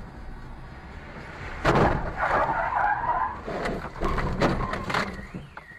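A car crash: steady driving noise, then a sudden loud impact a little under two seconds in, followed by skidding and scraping and several more sharp knocks. Near the end a car alarm starts, its tone wailing up and down.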